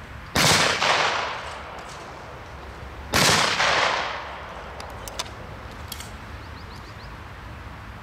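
Two gunshots at a shooting range, about three seconds apart, each followed by a long echoing tail.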